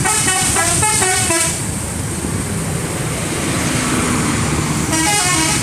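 Bus telolet horn, a multi-tone musical air horn, playing a quick stepping melody for about a second and a half, then sounding again near the end, over a vehicle engine running.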